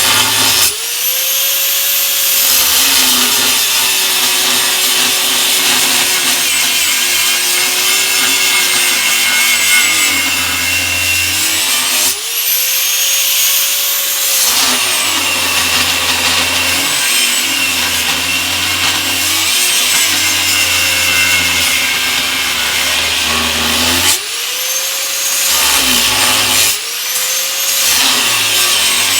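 Power tool cutting through thick steel, a continuous harsh cutting noise. Four times the tool comes briefly off the cut and its motor speeds up to a higher whine, then the pitch drops back as it bites into the metal again.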